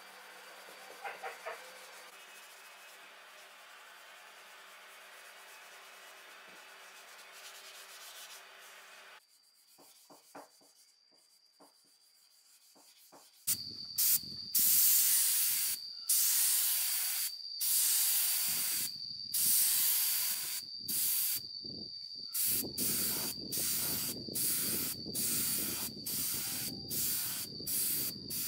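A hand rubbing a sanding pad over a wet, freshly painted chainsaw cover, faint. About halfway through, a paint spray gun starts hissing in repeated bursts, spraying red paint onto chainsaw housing parts. The bursts are about a second long at first, then shorter and quicker, more than one a second.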